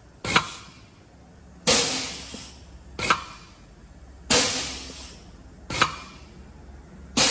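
Truck air disc brake caliper being cycled by its brake chamber on compressed air: each cycle is a sudden burst of air hiss that fades over about a second, followed by a short sharp clack as the mechanism and pressure plate move. It repeats about every two and a half seconds, three times, the rebuilt caliper working as it should.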